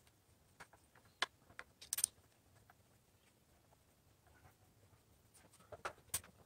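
Faint handling noise from a plastic clock radio case and its power cord being moved about: scattered small clicks and taps, with louder knocks about two seconds in and again near the end.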